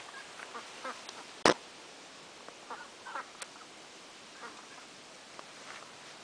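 Domestic hens clucking in short, scattered calls, with a single sharp knock about a second and a half in.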